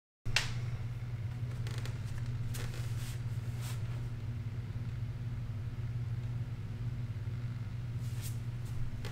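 Steady low hum of room tone in a small room, with a few faint clicks and taps through it.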